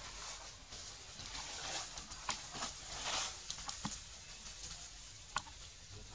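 Dry leaf litter rustling and crackling as a young macaque handles fruit on the ground. A few sharp clicks stand out, the loudest near the end.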